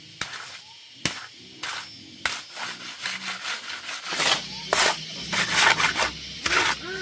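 Repeated scraping and knocking strokes, becoming busier and louder about four seconds in.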